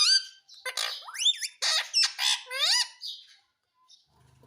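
Pet parrot squawking: a quick run of loud, high calls that glide up and down in pitch, stopping about three seconds in.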